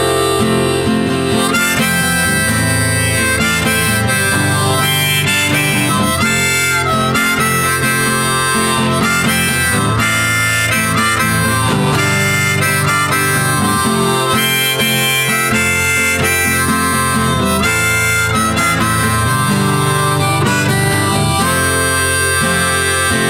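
Background music: an instrumental passage of a song, with no singing, playing steadily.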